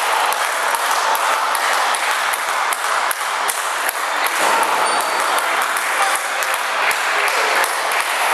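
Live crowd noise from a wrestling audience in an echoing gym hall: a steady din of voices and shouts, broken by many short sharp claps and knocks, including wrestlers' stomps landing on the ring mat.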